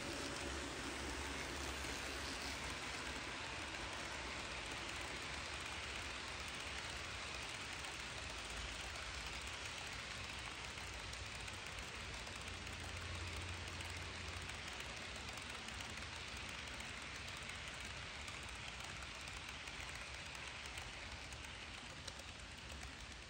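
HO scale model freight cars rolling past on the track, a steady rolling clatter of many small metal wheels on the rails.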